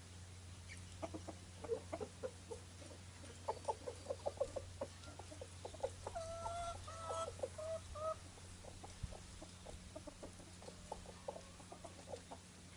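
Chickens clucking in a shed, with many short clucks throughout and a few longer, drawn-out calls about halfway through, over a steady low hum.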